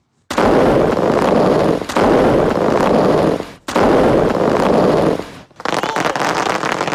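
Fireworks going off in a dense, rapid barrage: three long loud bursts of explosions that merge into each other, then a rattle of many small crackling pops from about five and a half seconds in.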